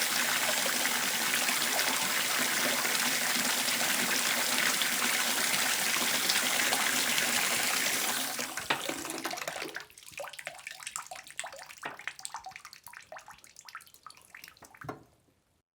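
Water running steadily from a tap; about eight seconds in the flow is shut off and dies away, leaving a few seconds of scattered drips before it stops.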